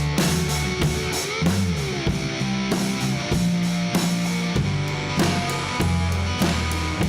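Blues band playing an instrumental passage: slide guitar with notes gliding in pitch, over a drum kit and low bass notes.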